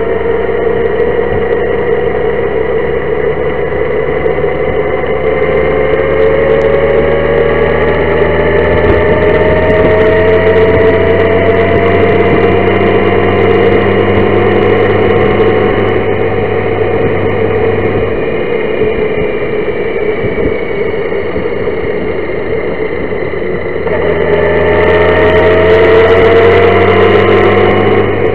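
Honda Gold Wing motorcycle engine running under way, its pitch climbing slowly as the bike gathers speed. About three-quarters of the way through the pitch drops, then climbs again and grows louder as it speeds up once more.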